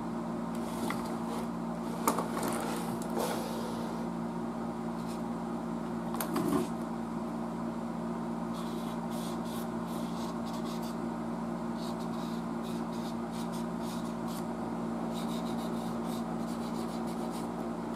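Marks-A-Lot permanent marker scratching and rubbing in short strokes on the worn black cabinet of a tube tester, blackening in the worn spots. A steady low hum runs under it throughout.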